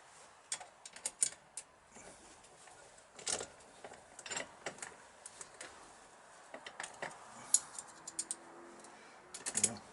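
Irregular small metal clicks and clinks of an Allen key and screws being handled and driven in to fit an ignition lock into freshly helicoiled threads.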